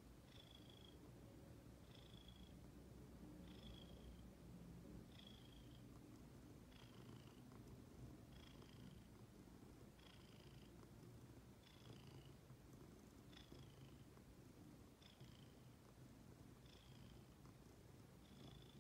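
Ginger domestic cat purring steadily and quietly, with a short high whistle repeating about every second and a half.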